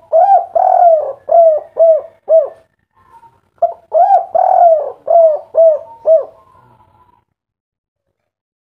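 Spotted dove (tekukur, derkuku) cooing in the 'kuk 3' style: two phrases about a second apart, each opening with longer coos and ending in three short 'kuk' notes.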